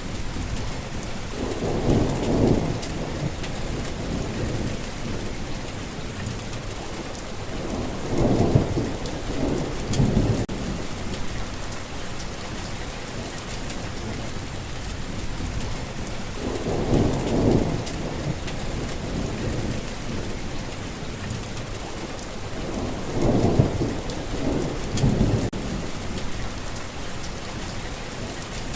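Steady rain falling on the ground, with thunder rumbling four times, each roll lasting a second or two and swelling above the rain.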